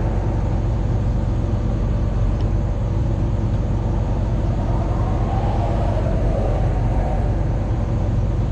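Excavator's diesel engine running steadily, a constant low hum heard from the operator's seat.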